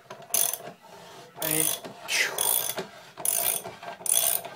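Socket ratchet wrench clicking in short strokes, about six in a row, as it cranks a vise screw tight against the heavy load of a tin can being crushed.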